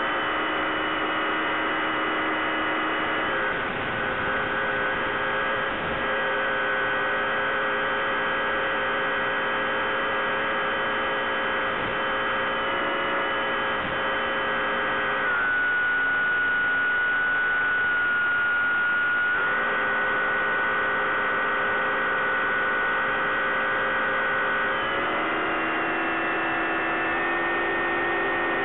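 Bixler 3 RC plane's electric pusher motor and propeller humming steadily in flight, heard from on board. The pitch shifts several times: it drops slightly about 15 seconds in, comes back up some four seconds later and shifts again near the end.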